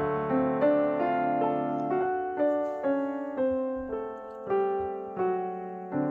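Background piano music: a slow melody of single notes, each struck and then fading, about one to two notes a second.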